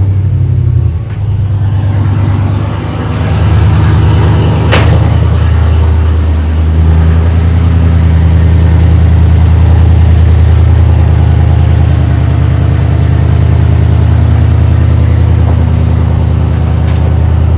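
Gen 5 L83 5.3-litre V8 in a 1986 Chevrolet C10 running steadily at idle, just restarted after about a month sitting in storage. It dips briefly twice near the start, and one sharp click sounds about five seconds in.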